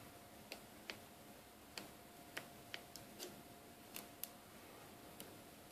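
Faint, irregular small clicks and taps, about nine, of a Samsung Galaxy S3's parts being handled as its antenna cable is pressed down into the phone's frame.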